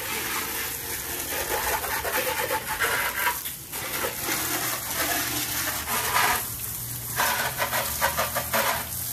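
Water from a garden hose spraying onto a motorcycle, a steady hissing spatter as the pre-wash shampoo and degreaser are rinsed off. The spray drops off briefly twice, about three and a half seconds in and again near seven seconds.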